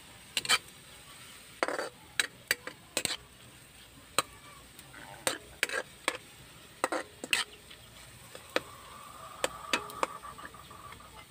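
Metal spatula scraping and clinking against an aluminium wok, in irregular strokes, while chopped chicken is stir-fried and turned.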